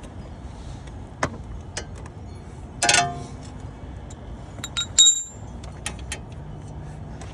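Metal hand tools clinking and knocking against metal: a few sharp separate clinks, the loudest near the middle, one with a brief ring, over a steady low background hum.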